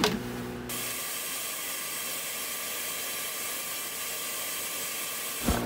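A steady, high hiss like rushing air, starting suddenly just under a second in and cutting off near the end, followed by a short knock.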